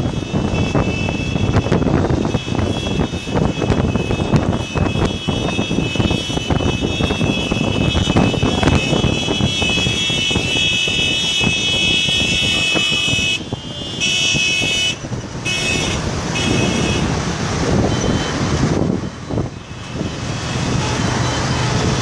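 Vehicle engines and road noise, with a steady high-pitched tone held over them from about a second in until near the end, broken a few times.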